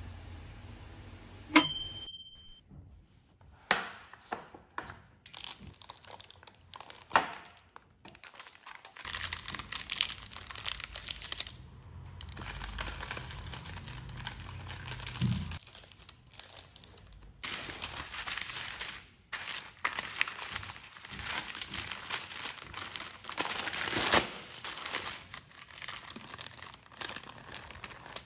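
Baking paper crinkling and tearing in irregular rustles as it is peeled away from the edges and underside of a freshly baked sponge cake sheet. A single bright ding rings out about a second and a half in.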